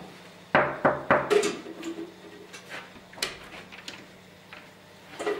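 Knocking on a door: about four quick sharp raps, followed by a few lighter clicks as the door handle and latch are worked and the door opens, over a low steady hum.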